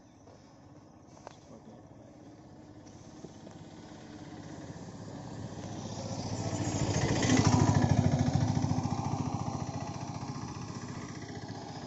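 A motor vehicle passes along the road. Its engine grows steadily louder, is loudest about seven to eight seconds in, then fades away.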